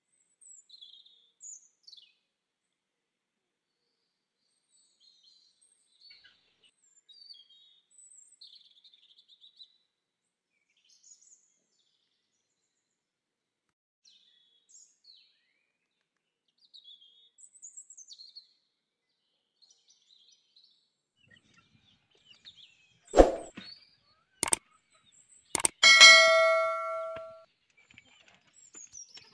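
Faint bird chirps, then near the end a few sharp clicks followed by a bell-like ding that rings for about a second and a half: the sound effect of a subscribe-and-notification-bell overlay.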